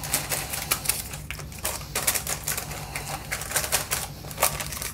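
Baking paper crinkling in quick, irregular crackles as hands press and stretch dough in a paper-lined glass dish, over a low steady hum.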